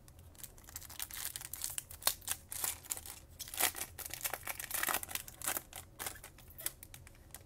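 Foil trading-card pack wrapper crinkling irregularly as it is handled and torn open at the top.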